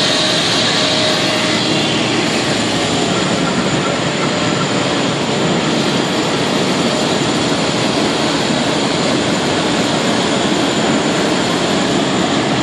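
Heavy road-resurfacing machinery, a milling machine with a raised conveyor among it, running with a loud, steady noise.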